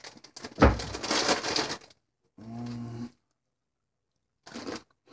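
A person's long, noisy breath out close to the microphone, beginning with a thump of air, followed a moment later by a short, steady hummed 'mm'.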